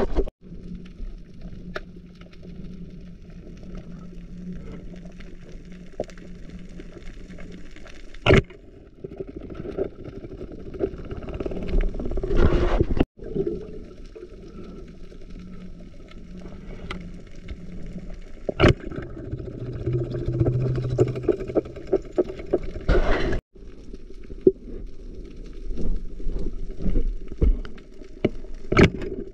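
Muffled underwater sound heard through a waterproofed camera: a steady low water rush with a faint hum at times, broken by scattered sharp knocks and clicks and a few louder surges.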